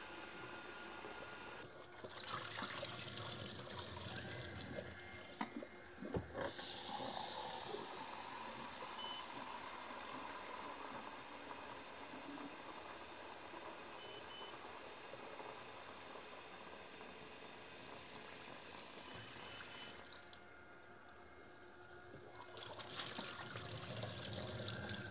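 Kitchen tap running a steady stream of water into a film developing tank in a stainless steel sink, rinsing the film. The flow dips for a couple of seconds near the end, and then water is tipped out of the tank into the sink.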